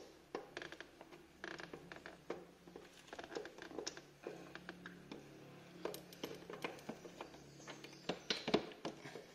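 Metal spark plug socket from the scooter's tool kit clicking and scraping as the stock spark plug is worked loose from a Yamaha Mio Soul i 125's cylinder head: a run of irregular small clicks and scrapes.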